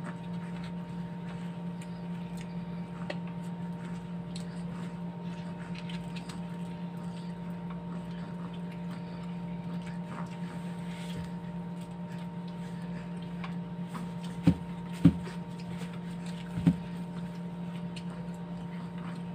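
Steady low hum under small clicks from hands and chopsticks working at food on plates. Three sharp knocks come close together about three-quarters of the way through.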